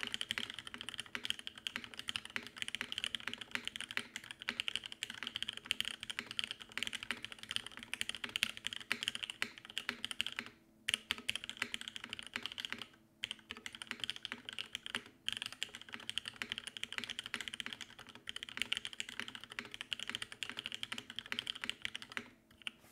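Fast, continuous typing on a Geonworks Frog TKL mechanical keyboard with lubed TTC Wild switches on an aluminum plate: a dense patter of higher-pitched key clacks. There are brief pauses about 11, 13 and 15 seconds in, and the typing stops just before the end.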